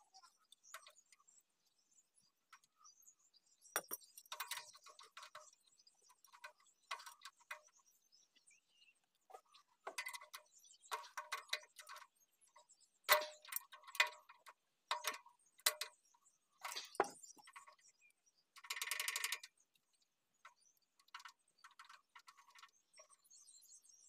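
Scattered metallic clicks and taps of hand tools working on a stopped diesel engine's rocker arm tappet adjuster, being tightened to cure a loose tappet that was causing a knocking sound. Late on, a brief run of rapid even ticks like a ratchet.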